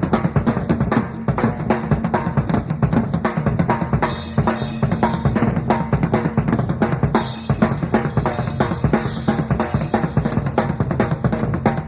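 Rock drum kit played solo live: rapid snare and tom strokes over bass drum, with cymbal washes about four seconds in and again from about seven seconds.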